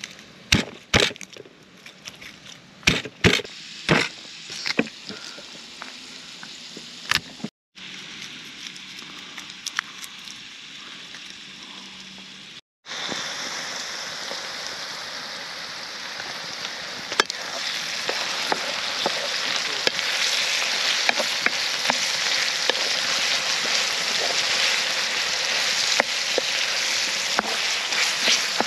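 A knife cutting garlic cloves on a wooden board, a handful of sharp knocks in the first few seconds. Then sliced peppers, carrots and onions frying in a wide black iron pan over a fire: a steady sizzle that grows louder, with light scrapes of a wooden spatula stirring.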